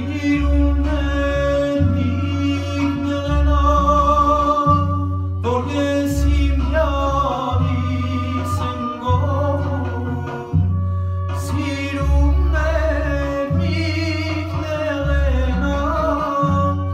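A young man singing an Armenian song into a handheld microphone, his voice wavering and ornamented, over recorded backing music with a bass that moves in long held notes and occasional sharp percussion hits.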